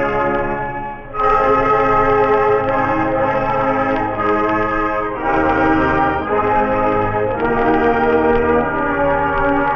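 School band playing the alma mater in sustained brass chords, heard from a 1965 45 rpm record. The sound thins briefly about a second in, then the full band comes back in.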